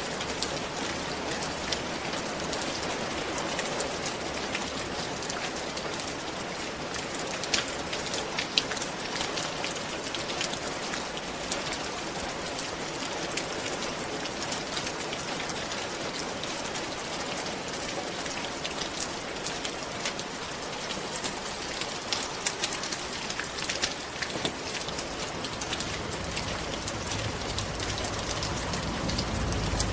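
Steady rain falling on a roof: an even hiss dotted with the sharp ticks of individual drops striking. A low rumble swells in near the end.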